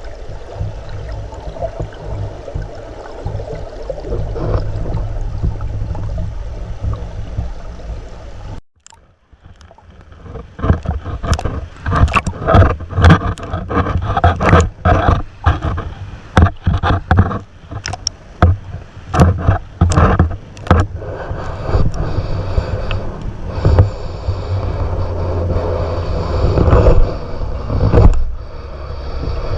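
Muffled, rumbling rush of river current heard through an underwater camera's microphone. It cuts out suddenly about nine seconds in, then a run of sharp knocks and scrapes goes on for about ten seconds before the steady rush carries on.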